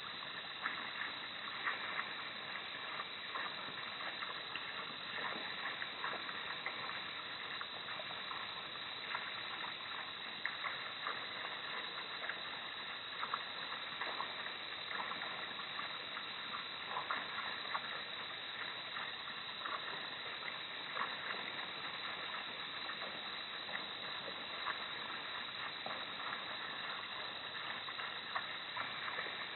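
Steady hiss of night-time outdoor ambience through a low-quality outdoor camera microphone, with scattered faint clicks and ticks.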